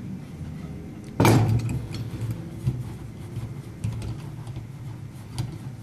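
A loud metal clank about a second in, then light irregular clicking and rattling of metal parts as a leg of a satellite dish roof mount is threaded into place by hand.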